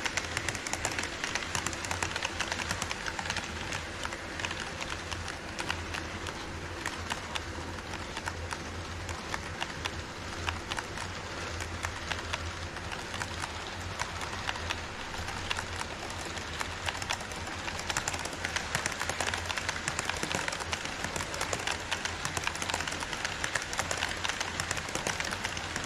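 HO-scale model train cars rolling on KATO Unitrack sectional track: a continuous, dense clatter of small wheels over the rail joints. A steady low hum runs underneath.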